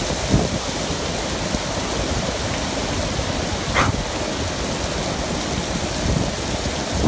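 Hurricane wind and heavy rain rushing steadily, with strong low rumble from the wind buffeting the microphone, and a brief high squeal about four seconds in.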